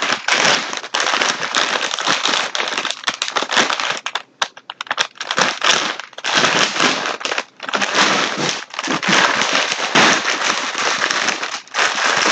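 Packaging of a mail-order parcel being handled and crinkled open, a loud dense crackling in several stretches with short pauses between them.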